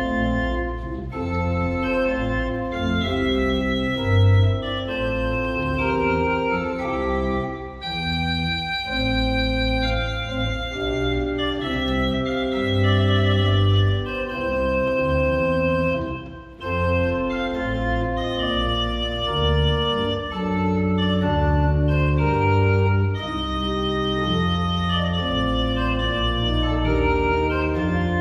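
Church organ playing a festive piece: held chords and melody notes over a sustained pedal bass line.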